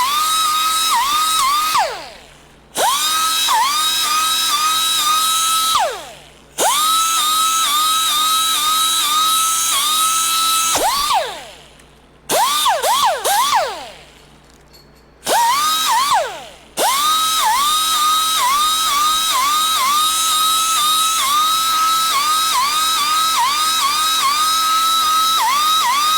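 Small high-speed air grinder whining steadily. Its pitch dips briefly as it bites into the seat foam. It is let off several times and winds down with a falling whine before starting up again, with a few quick short bursts around the middle.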